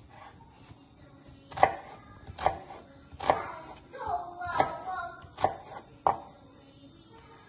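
Kitchen knife cutting an onion on a wooden cutting board: six separate knocks of the blade striking the board, slow and unevenly spaced.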